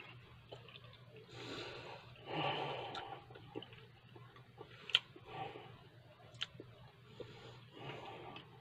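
Quiet sips of tea from a glass mug, with breaths between them and a few small clicks of the mouth or glass; the sharpest click comes about five seconds in.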